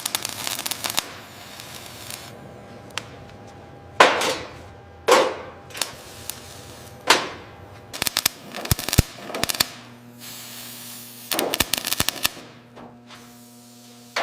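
Sharp cracks and clicks coming in quick clusters, near the start, about two-thirds of the way in and again near the end, with a few single louder hits between them that each trail off in a short falling swish.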